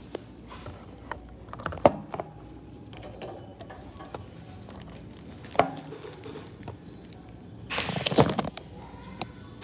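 Wire shopping cart being handled: scattered sharp clicks and knocks, with a louder rattling clatter lasting under a second near the end.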